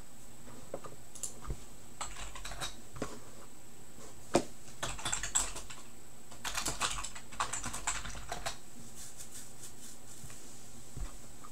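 Typing on a computer keyboard: short clattering bursts of keystrokes, the busiest about halfway through, then stopping, over a faint steady high-pitched whine.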